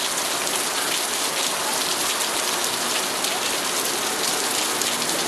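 Very heavy tropical rain pouring down, a dense, steady hiss of drops.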